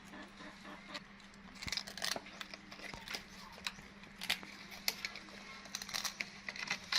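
Baby monkey chewing crispy rice crackers: irregular sharp crunches, thickest about two seconds in and again in the second half, over a steady low hum.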